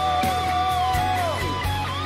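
Band music in an instrumental break: a guitar holds one long note with a slight vibrato, then slides down in pitch about a second and a half in, over a steady bass line.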